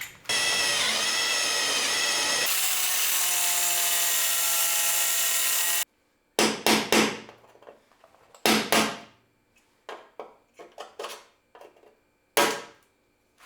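Electric drill running steadily as it drills out the rivet nuts (nutserts) in the Jeep's body, its whine wavering in pitch for the first couple of seconds, then holding steady. It cuts off abruptly about six seconds in, followed by a series of short, sharp knocks and clatters.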